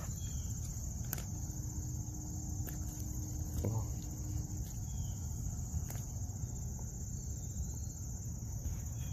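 Steady high-pitched insect chorus, crickets or similar, over a constant low rumble, with a few sharp clicks and rustles scattered through.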